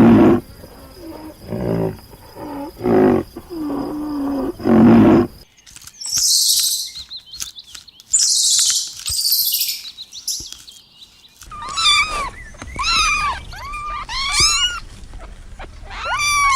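Cattle lowing in low, drawn-out calls for about five seconds, then a few seconds of harsh, hissing high-pitched bursts, then a quick series of short, high calls that rise and fall.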